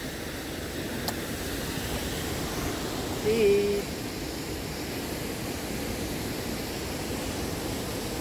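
Steady rush of water from a small waterfall spilling over a dam, with one sharp click about a second in.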